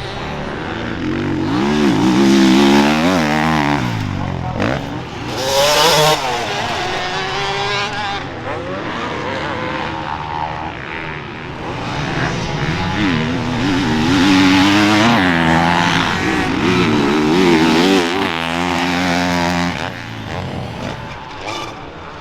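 Motocross racing engines revving hard as machines run the track, the pitch climbing and dropping again and again with throttle and gear changes. The sound swells loudest a few times as machines come close, with more than one engine often heard at once.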